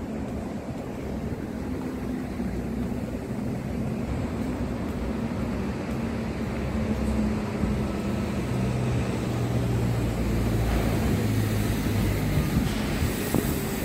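Wind buffeting a handheld phone's microphone in a steady low rumble, with road traffic running underneath; a low engine hum grows louder in the second half.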